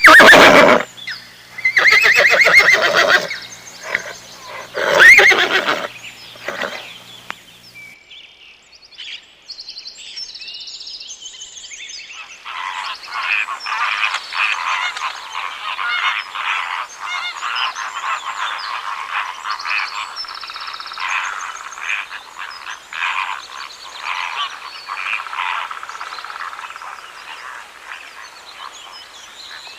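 Farm animal calls: several loud calls in the first six seconds, a few high chirps, then a dense run of rapid calls from about twelve seconds in to the end.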